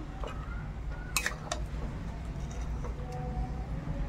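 Metal ladle clinking and scraping against the cooking pot and clay serving plate as chicken curry is ladled out, with two sharp clinks a little over a second in. A steady low hum runs underneath.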